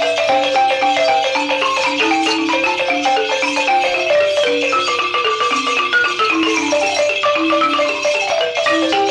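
Malinke balafons, West African gourd-resonated xylophones, playing together in fast interlocking patterns, with quick runs of notes falling in pitch several times.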